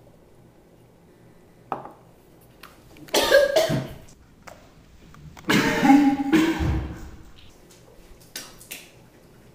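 A person gagging and coughing in two harsh bouts, one about three seconds in and a longer one from about five and a half seconds, after swallowing a raw egg whole. A short knock comes just before the first bout.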